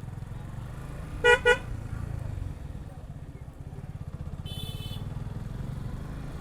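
Motorcycle engine running steadily while riding, with two quick horn beeps about a second in and a brief high-pitched ring around the middle.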